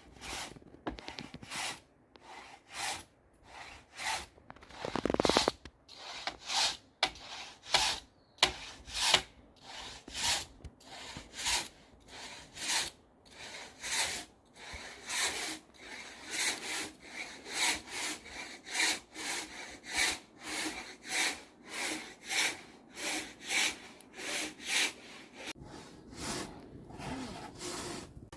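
Traditional Nepalese hand saw cutting through timber in repeated back-and-forth rasping strokes. The strokes are uneven at first, then settle into a steady rhythm of about two a second.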